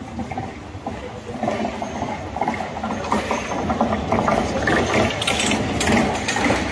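Street noise with a rapid mechanical clattering and rattling that grows louder about a second and a half in.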